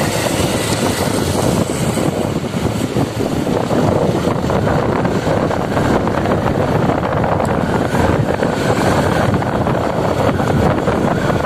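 Wind buffeting the microphone over the steady running noise of a vehicle travelling along a paved road.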